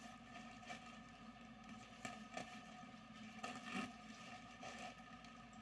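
Faint rustling and handling of a parcel being unboxed, a few soft crinkles over a steady low hum.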